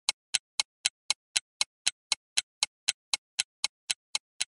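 Even, clock-like ticking sound effect, about four sharp ticks a second, easing slightly in loudness near the end.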